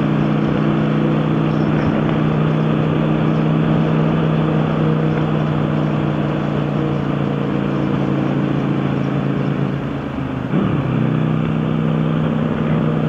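Motorcycle engine running at a steady cruise under wind and road noise. About ten seconds in the engine note drops briefly and comes back up.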